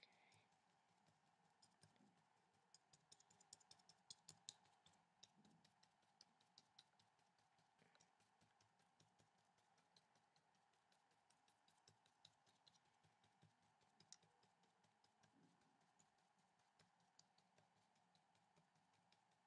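Very faint, irregular light taps of a watercolour brush dabbing paint onto paper, thickest in the first few seconds and sparser later, over a faint steady hum.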